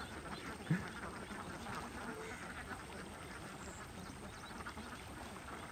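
A large flock of domestic ducks quacking together while they feed, a dense chorus of many birds at once, with one brief louder sound less than a second in.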